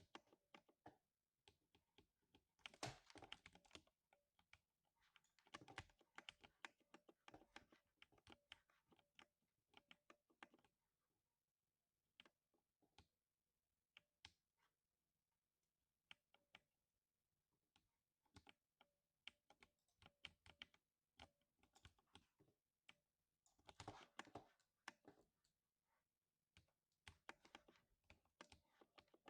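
Lubed 60% mechanical keyboard being typed on, faint deep thocking keystrokes coming in quick runs, with slower, scattered single presses through the middle.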